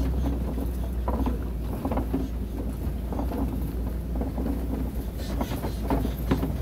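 Safari ride truck driving along a dirt track: a steady low engine and road rumble with scattered rattles and knocks as the vehicle bounces.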